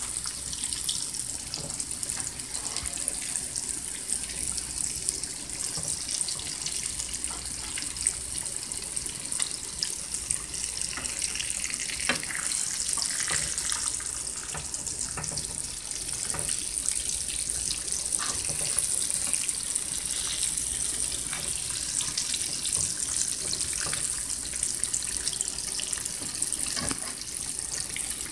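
Salmon croquettes frying in a pan of hot oil: a steady sizzle with many small crackles and pops.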